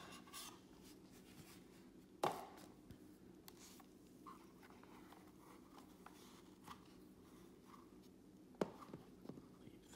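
Quiet handling of a cardboard box in gloved hands: faint rustles and small ticks, with two sharp taps, about two seconds in and near the end, over a faint steady hum.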